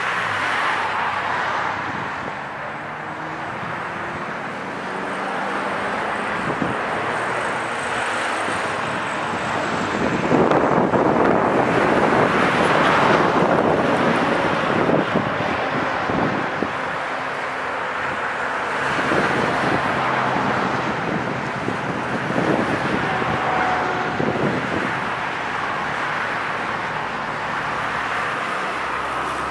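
Outdoor ambient noise: a continuous rushing with a faint low rumble. It swells loudest from about ten to fourteen seconds in, eases, then rises a little again later.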